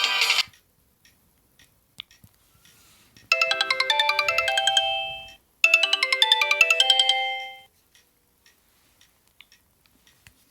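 Sony Ericsson W595 mobile phone playing a short melodic jingle of stepped notes ending on held tones, twice in a row, each about two seconds long. Faint clicks come before and after it, and the tail of a previous tune cuts off just at the start.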